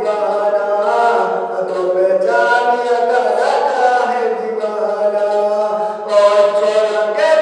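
Male voice singing a Mewati folk song unaccompanied, drawing out long held notes that slide from one pitch to the next.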